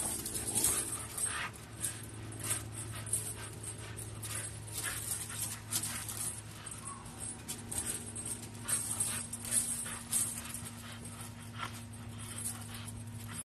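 A dog jumping and tugging on a hanging rope toy: irregular light clicks and rustles from the rough play, over a steady low hum.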